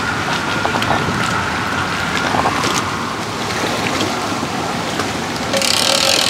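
Wind blowing over the microphone with lake water lapping, a steady rushing noise with a faint high whine in the first couple of seconds and a brighter rush near the end.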